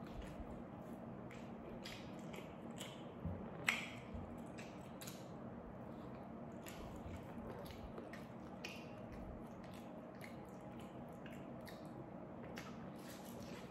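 Close-up eating sounds: chewing, wet squishes and scattered crunchy clicks as a person eats rice, fried food and raw vegetables by hand. One sharper click comes a little before four seconds in, over a steady low hum.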